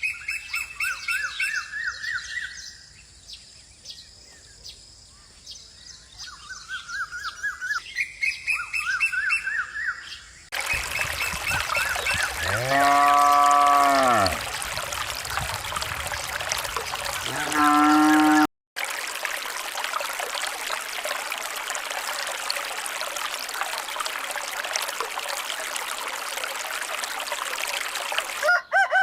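Small songbirds chirping in repeated rising phrases. About ten seconds in, this cuts abruptly to a steady hiss of running water, over which a rooster crows three times.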